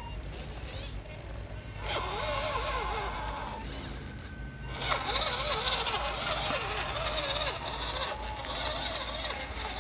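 Electric motor and gears of a radio-controlled scale van whining, the pitch wavering up and down with the throttle, with a brief dip about four seconds in.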